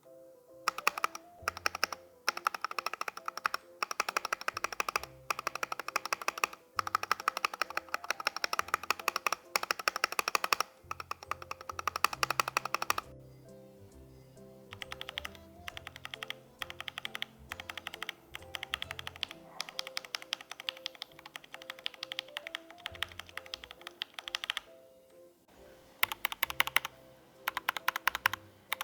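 Typing in fast bursts on a mechanical keyboard with Gateron Ink V2 Black linear switches, lubed with Krytox 205g0; the key strikes turn quieter for a long stretch in the middle and loud again near the end. Background music plays underneath.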